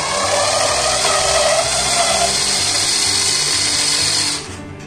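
Electric screwdriver running steadily on a screw in the plastic base of an induction cooktop, then stopping sharply near the end.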